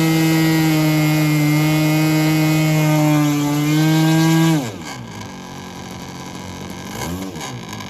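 OS 46 LA two-stroke glow engine on a model plane running at high throttle with a steady high-pitched whine, then throttled sharply down to a low idle about four and a half seconds in. Near the end there is a short blip of throttle that rises and falls in pitch.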